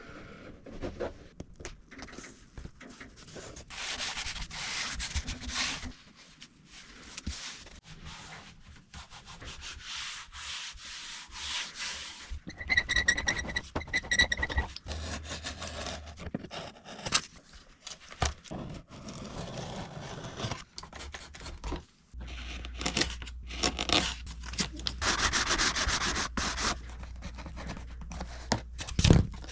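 Rubbing and scraping from hand work on materials, with scattered clicks and knocks. A short run of rapid high chirps comes about halfway through.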